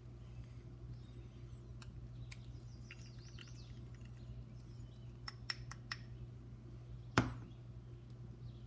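Small plastic clicks and taps from handling a syringe of sealant at a basketball's inflation valve, with a cluster of light clicks past the middle and one sharper tap about seven seconds in, over a steady low hum.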